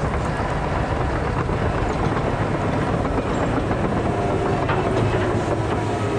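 Caterpillar 973C track loader running nearby: a steady diesel rumble with the clatter of its steel tracks.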